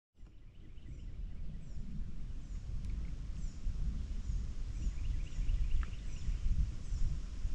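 Wind rumbling on the microphone, with a bird giving short, high, falling chirps about twice a second in the background.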